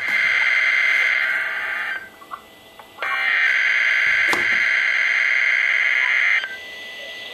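Emergency Alert System SAME header data bursts over a NOAA Weather Radio receiver: harsh, buzzy digital warbling. It comes in two long bursts about a second apart, with a faint steady tone left after the second burst.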